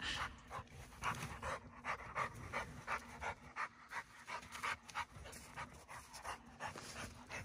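A dog panting hard and fast, about three breaths a second, out of breath from exertion.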